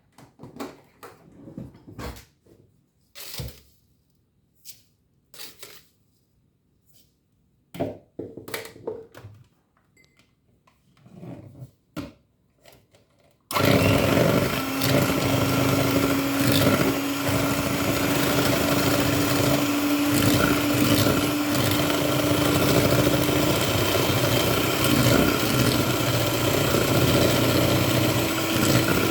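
Scattered light knocks and clicks of kitchen handling, then about halfway through an electric mixer starts and runs steadily at high speed, whipping egg yolks with sugar.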